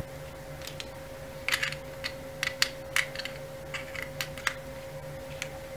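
Push-button power switches on a USB hub clicking on and off: a dozen or so short, sharp plastic clicks at an irregular pace, over a faint steady electrical hum.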